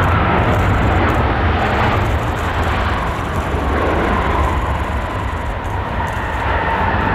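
Airbus A330-300 freighter's jet engines running on the landing rollout with ground spoilers up: a steady low rumble under a high whine that slowly falls in pitch.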